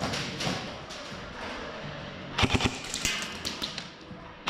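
Airsoft guns firing rapid bursts of shots, loudest in a cluster a little past halfway, with scattered knocks and thumps around them.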